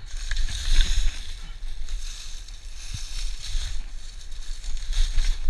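Footsteps crunching through dry fallen leaves, in an uneven rhythm of crackling steps, over a steady low rumble of wind buffeting the microphone.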